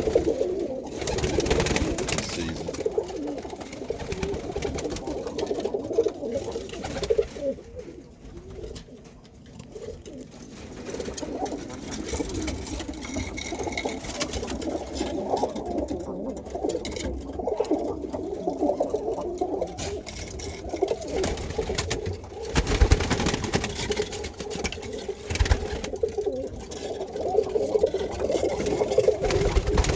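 Many Birmingham roller pigeons cooing together in a kit box, a dense, continuous low cooing, with a few knocks or thumps late on.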